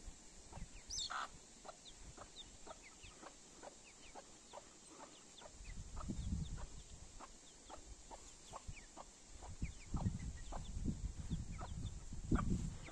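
Chinese bantam chickens calling softly: a run of short, quick peeps at about two a second, joined from about halfway through by lower, fuller clucking.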